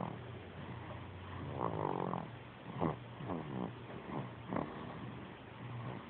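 Snoring: a run of short snores in a row over a steady low drone.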